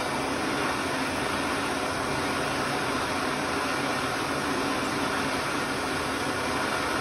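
Handheld gas torch burning with a steady, loud hiss as its flame heats rusted spoke nipples on a wheel hub to loosen them.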